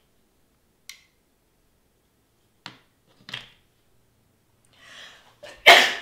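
A few faint light clicks from small paper cut-outs being handled, then near the end a person sneezes: a short breathy intake followed by one loud sudden burst.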